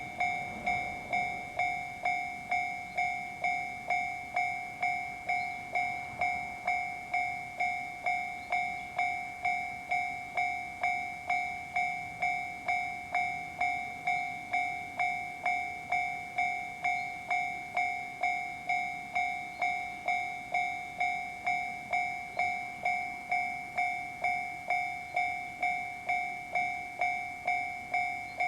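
Japanese railway level crossing warning bell ringing steadily, a two-pitched ding repeating about twice a second, warning of an approaching train.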